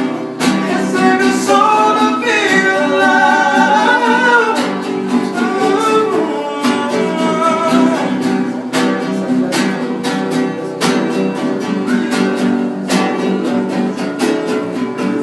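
Acoustic guitar strummed in a steady rhythm, playing a hymn, with a voice singing a melody line for a few seconds starting about two seconds in.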